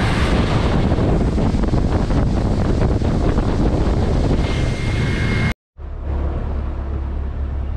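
Boat motor running under way, with water rushing past the hull and wind buffeting the microphone. It cuts off suddenly about five and a half seconds in, then returns as a quieter, steadier low engine drone.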